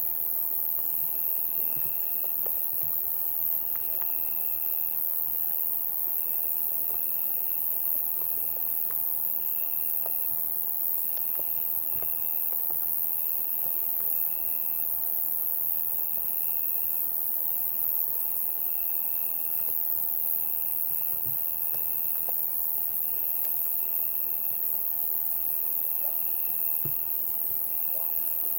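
Chorus of night insects: a continuous very high-pitched drone, with a cricket trill repeating in phrases of about a second with short gaps between.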